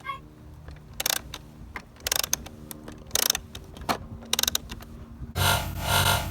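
Plastic toy parts clicking and rattling as the toy is handled, over a steady low hum, with a louder rushing rattle about five and a half seconds in.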